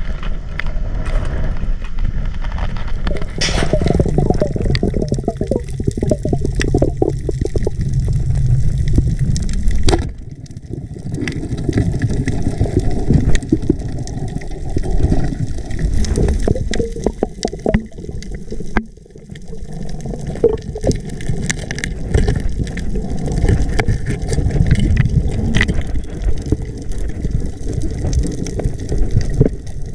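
Sea water sloshing and gurgling around the camera: a muffled low rush dotted with small clicks and knocks. It drops away briefly twice.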